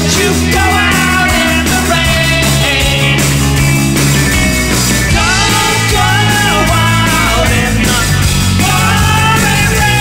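Live rock band playing: electric guitars, bass guitar and drum kit, with a sung lead vocal over them.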